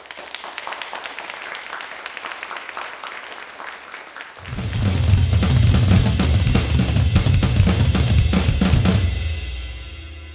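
Drum-kit music. A fast rattle of light percussion hits gives way, about four and a half seconds in, to a loud, heavy drum-and-cymbal passage that ends in a long ringing decay.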